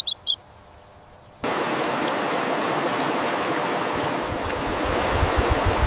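A farm chick peeping a few short, high times, then an abrupt cut to a steady rushing noise. Low rumbling thumps join it about four seconds in.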